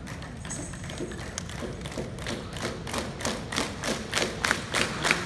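A seated group beating out a rhythm together with hand claps and slaps, sharp strikes in unison that speed up to about four a second and grow louder toward the end.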